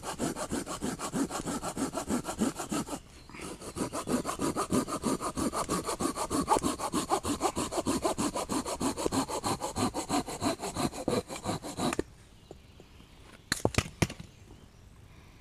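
Small folding hand saw cutting through a green branch with quick, even back-and-forth strokes, pausing briefly about three seconds in. The strokes stop as the piece is cut through, followed by a few sharp clicks.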